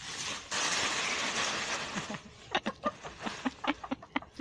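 Dry fallen leaves rustling: a steady rustle for about a second and a half, then a run of short crunches and scrapes.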